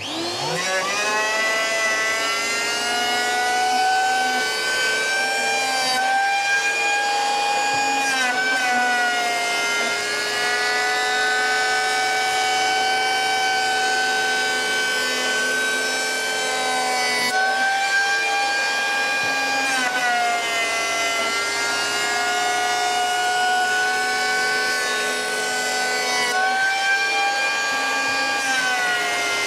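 Wolf 900 W three-blade electric rebate planer spinning up with a rising whine, then running at speed as it planes a rebate along a length of timber. Its motor pitch dips and recovers several times as the cutter block bites into the wood.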